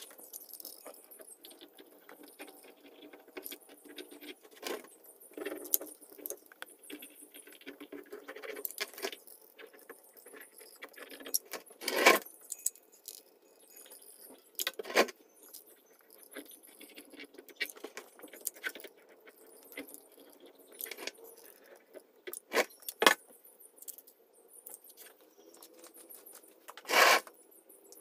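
Metal caulking gun clicking and rattling as its trigger is squeezed and released to press out caulk, with scattered small clicks and a few louder sharp clacks near the middle and toward the end.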